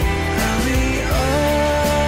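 Music: a slow pop ballad sung by a male voice, which holds a long note starting a little over a second in, over a steady bass accompaniment, with the sound of rain mixed in underneath.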